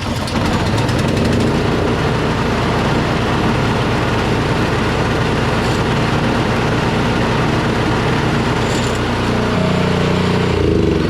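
Toro Power Clear 721E snow blower's 212cc single-cylinder OHV four-stroke engine starting up and running steadily. Its note shifts briefly near the end.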